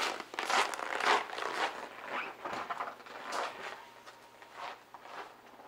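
Footsteps crunching on cold snow, a run of short steps that grow steadily fainter as the walker moves away.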